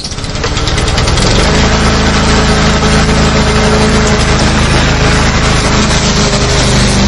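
Lawn mower engine running steadily while mowing, a constant low hum under a broad whirring hiss. It fades in over the first second, then holds at an even level.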